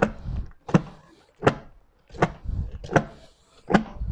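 A metal spatula knocking and scraping inside a stainless steel ice cream canister as thickening ice cream is stirred, in a steady rhythm of sharp knocks about three every two seconds.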